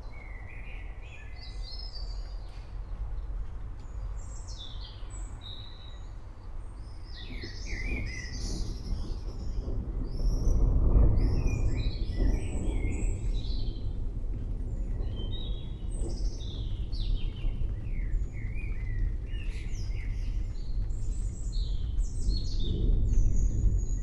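Many birds chirping and calling in short, overlapping phrases, over a low distant rumble of thunder that swells about ten seconds in.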